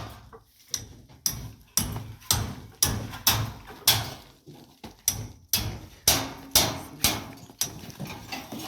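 Hammering: repeated hammer blows, about two a second, each fading quickly.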